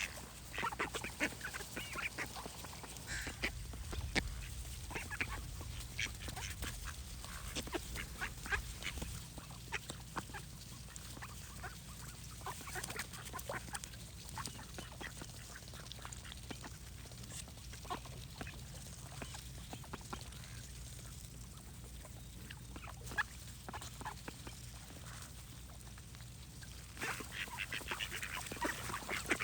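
Duck quacking in short, irregular calls, with a busier run of quacks near the end.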